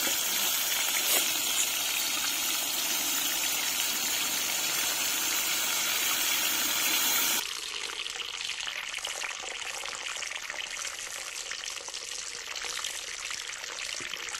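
Chicken 65 pieces deep-frying in hot oil: a steady, hissing sizzle. About halfway through the sizzle suddenly becomes quieter and duller.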